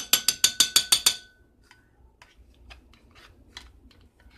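A metal utensil tapping quickly against a dish, about nine sharp ringing taps in the first second, as wet cat food is knocked off into the cat's dish. Fainter scattered clicks follow.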